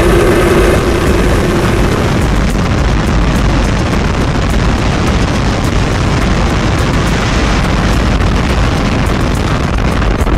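Starship's Super Heavy booster lifting off, its 33 Raptor engines firing in a loud, steady roar. A humming tone sits in the roar for the first couple of seconds, then fades.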